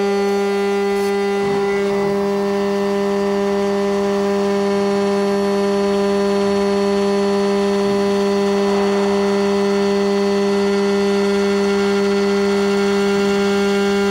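CNC router spindle running with a steady, many-toned whine while a small end mill cuts a groove in aluminium plate, a rougher cutting noise under the whine.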